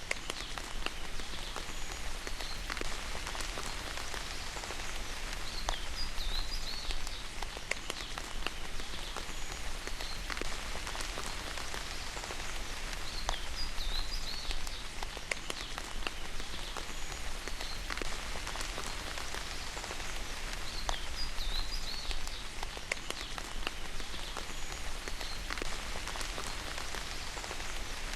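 Steady rain falling, with many close drips ticking. A short, high, wavering animal call comes back every three to four seconds.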